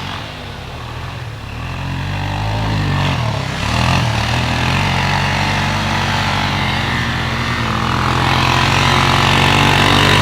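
ATV engine running under way. Its revs dip and climb again about three to four seconds in, then hold steady, growing louder toward the end.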